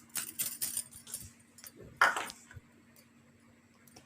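Light clinks and rattles of a spoon and bowl as cooking ingredients are tipped in, with one short louder noise about two seconds in.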